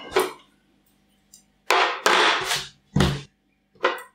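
Containers being handled on a tabletop: a long scraping rustle as a large glass jar is slid aside, then a sharp knock and a lighter one as pots are set down.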